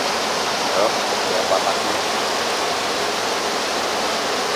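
Steady rushing of flowing water, an even hiss with little low end.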